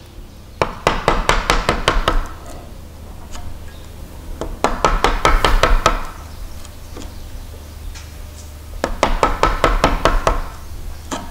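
Wooden mallet tapping a chisel in quick, light strokes, chopping a mortise in timber: three runs of rapid taps, each lasting about a second and a half, with short pauses between.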